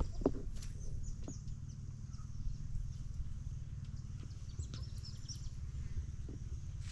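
Outdoor ambience: birds chirping in short high calls in two brief spells, one early and one about two-thirds of the way in, over a steady low rumble.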